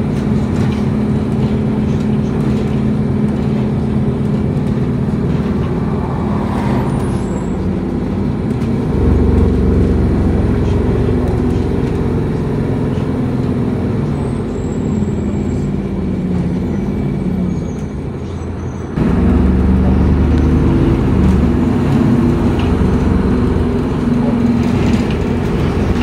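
Engine hum and road rumble heard from inside a moving road vehicle, with a steady pitched engine note. The sound grows louder and fuller about a third of the way in, and steps up again abruptly about two-thirds through.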